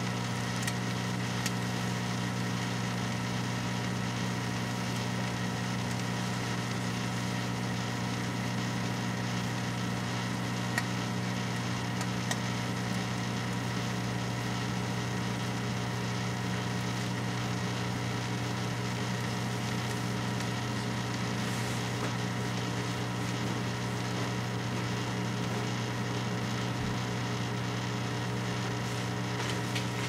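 Microwave oven running with a steady electrical hum, with a few faint clicks from the steel Slinky inside sparking.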